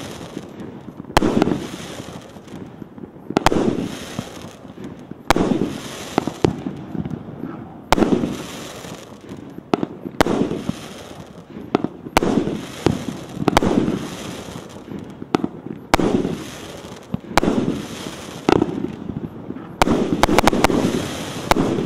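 Piroff 'Champion' 36-shot 1.2-inch fireworks battery (cake) firing its shells in sequence, about one every one to two seconds. Each shot is a sharp bang followed by about a second of noisy crackle from the burst. Near the end a few shots come in quick succession.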